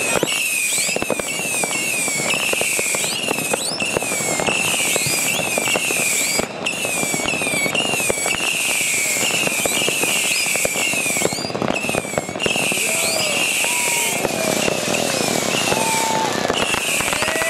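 Category II consumer fireworks battery firing a rapid series of shots. Each shot trails a whistle that bends up and then falls in pitch, over continuous crackling and popping. In the last few seconds lower-pitched whistles join in.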